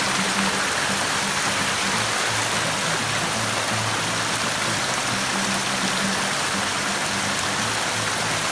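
Mountain stream water running steadily, a constant rushing hiss, with faint low steady tones coming and going underneath.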